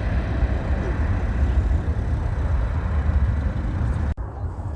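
Airbus A319 airliner's jet engines heard from outside: a steady low rumble. It breaks off abruptly near the end, where the recording cuts to another shot.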